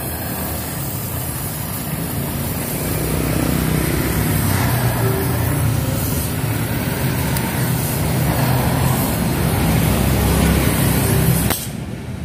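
Acetylene (carbide) gas welding torch flame hissing steadily while welding a broken motorcycle exhaust pipe, over a low rumble. The hiss cuts off abruptly near the end.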